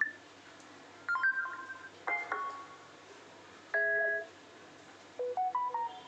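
Samsung Galaxy S20 playing short previews of its built-in notification tones through its speaker as different tones are tapped in the list. There are four brief electronic chimes, each a different melody, with quiet gaps between them.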